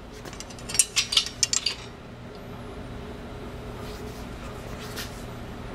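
Steel flat bar clinking against the metal dies and frame of a manual compact bender as it is set back in for further bending: a quick run of metallic clinks about a second in, then a steady low hum.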